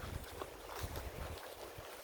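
Footsteps on sand, soft and irregular, with a faint low rumble of wind on the microphone.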